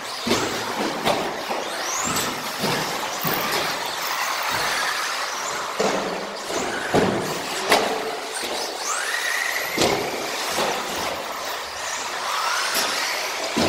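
Radio-controlled model car driving on a carpet track: its motor's whine rises and falls with the throttle, over a steady rough noise, with several sharp knocks along the way.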